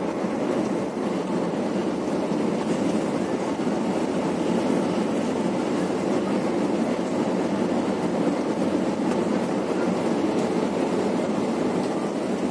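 Steady rumble of tyres and engine heard inside a coach's cabin as it drives at highway speed.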